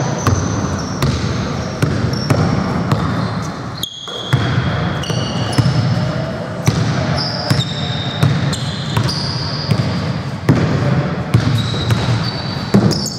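Indoor basketball game sounds: a ball bouncing on a hardwood floor and sneakers squeaking in short high chirps as players move. The sound cuts out briefly about four seconds in.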